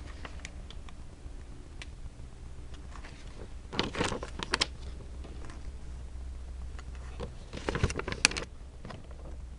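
Light taps, clicks and rustles as paper and small craft pieces are handled and pressed down on a work surface, with two busier bursts of handling about four and eight seconds in, over a steady low hum.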